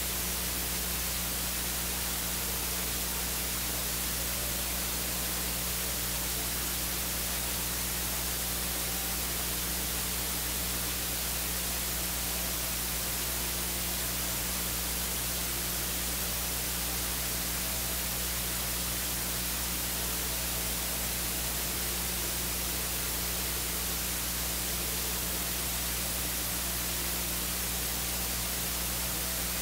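Steady electronic hiss, like static, over a low hum. It is even and unbroken, with no singing, organ or voices heard.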